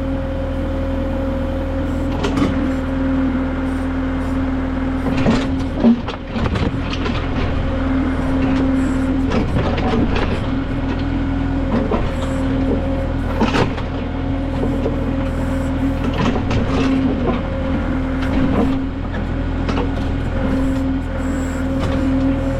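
Kubota M6060 tractor's diesel engine running steadily while it powers a Titan LW-6 backhoe digging a ditch, with scattered knocks and scrapes from the bucket working the ground.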